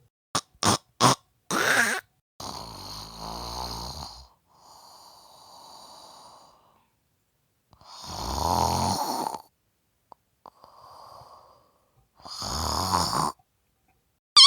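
Snoring: three long, rattly in-breaths about every five seconds, the first two each followed by a softer, airy out-breath. A few short, sharp sounds come in the first two seconds.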